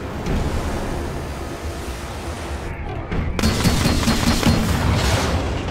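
Film sound effect of a warship's multi-barrel rocket launcher firing a rapid salvo. It starts suddenly about three seconds in and runs as a quick string of launch blasts for nearly two seconds. Underneath are film score music and a low steady rumble of the ship at sea.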